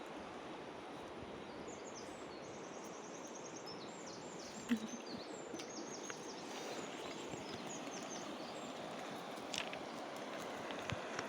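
River water rushing steadily, with a small bird chirping in quick high series through the middle of the stretch and a sharp click about halfway.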